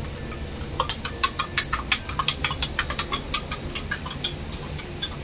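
A metal spoon clinking against a glass tumbler as a drink is stirred: a quick run of light clinks that thins out near the end.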